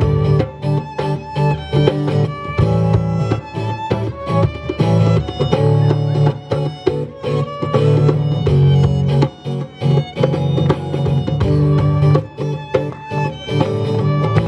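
Live band playing an instrumental break: a violin melody over strummed guitar and bass.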